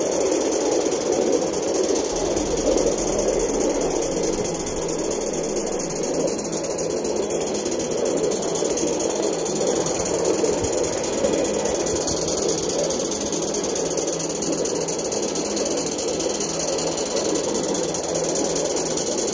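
3.5-inch gauge LBSC Juliet live steam locomotive running along the track: a rapid, steady chuffing of its exhaust mixed with wheels rattling on the rails, over a steady hiss of steam.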